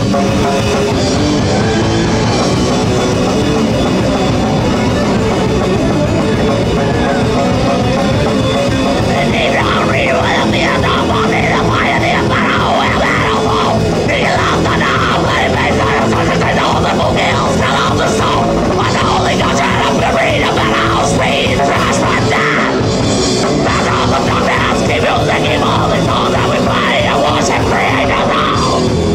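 Hardcore thrash band playing live at full volume: electric guitar and drum kit, with shouted vocals coming in about nine seconds in.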